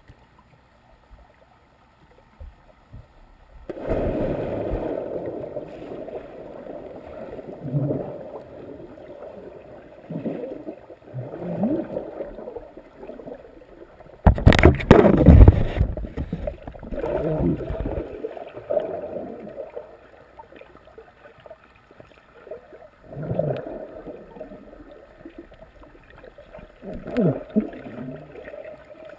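Swimmers moving and splashing in a pool, heard underwater: muffled sloshing and gurgling that comes and goes, with one much louder splash about halfway through.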